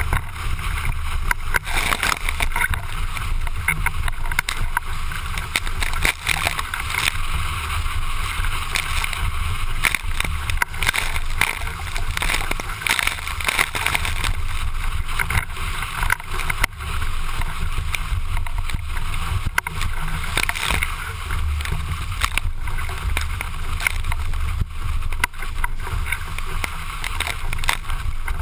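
Windsurf board planing at speed: steady rush of water and hissing spray, with many short slaps of chop and spray against the board and camera. Heavy wind buffeting rumbles on the microphone throughout.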